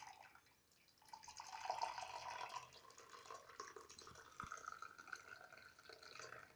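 Hot tulsi kadha, a herbal decoction, poured through a strainer into a cup: a faint trickle starting about a second in, its pitch rising as the cup fills.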